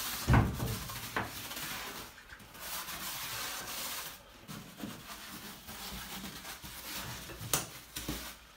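Brass-bristle brush scrubbing acid-soaked grout lines on ceramic shower tile, a rough rasping scrub that pauses briefly twice.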